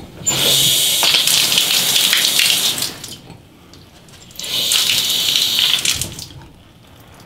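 Water rushing and hissing through a washing-machine supply valve as it is opened into a freshly connected stainless steel hose, in two bursts of about two and a half and two seconds.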